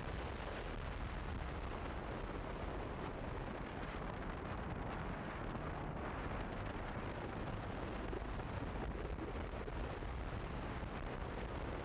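Wind rushing and rumbling steadily over the microphone of a Honda CB150F motorcycle riding at road speed, mixed with the bike's engine running underneath.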